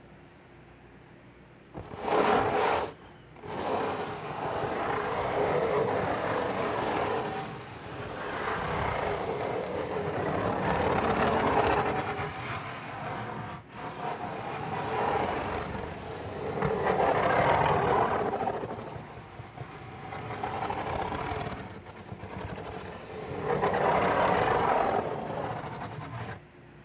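Fingertips scratching in circles on the lid of a cardboard pizza box, a dry rasping that swells and fades in slow waves. It starts about two seconds in and stops just before the end.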